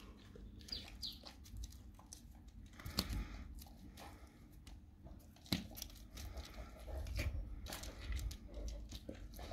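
Dog licking, mouthing and biting at a raw cow tongue: wet smacking and clicking of the mouth and teeth on the soft meat, with two sharper clicks about three and five and a half seconds in.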